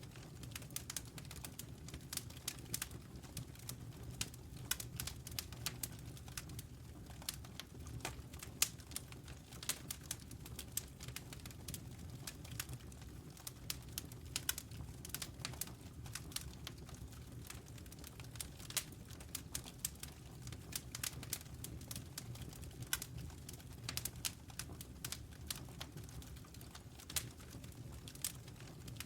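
Wood fire crackling: irregular sharp snaps and pops, several a second, over a steady low rumble of flames.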